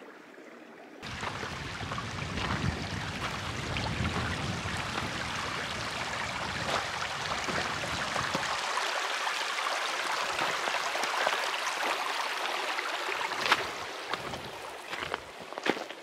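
Shallow creek running over rocks, a steady rush of water that starts about a second in. Near the end it fades and footsteps sound on the snowy trail.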